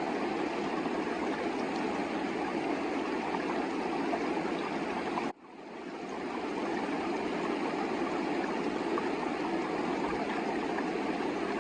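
Mountain river rushing steadily, an even hiss of flowing water. It cuts out abruptly about five seconds in and swells back within a second.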